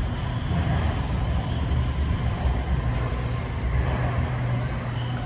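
Steady low rumble of a Shenzhen Metro Line 1 train, with a few short high tones near the end.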